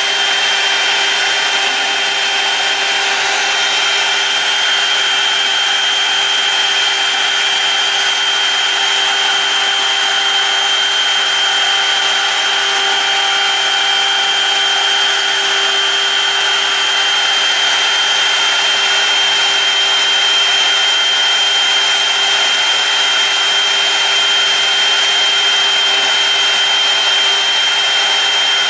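Fan-Tom lens cutting machine's three-phase induction motor spinning its cutter as it cuts the outline of a sunglasses mask lens: a steady high whine over the hiss of the cut.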